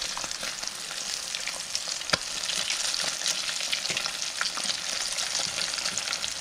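Breaded crappie fillets frying in shallow oil in a skillet: a steady crackling sizzle as they are turned with a fork. There is one sharper click about two seconds in.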